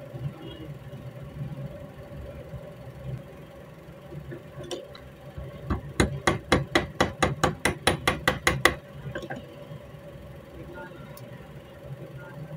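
A quick run of about fifteen sharp metal taps, roughly six a second, lasting a couple of seconds in the middle, with a few single taps before and after: a small hammer tapping home the retaining pin of a newly made rifle ejector. A steady low hum runs underneath.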